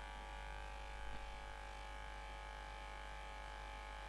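Steady electrical hum with several constant high tones layered over it, an unchanging background drone; a faint click about a second in.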